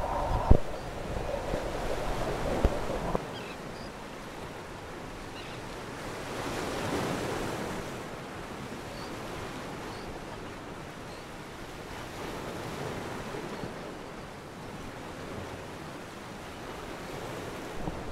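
Open-sea water noise with wind buffeting the microphone, from a small canoe on the water. A few sharp knocks come in the first three seconds.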